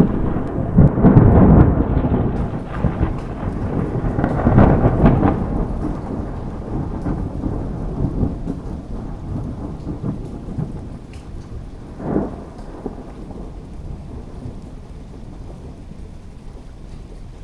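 Thunder rumbling over steady rain, loudest in the first few seconds, then dying away, with a short separate peal about twelve seconds in.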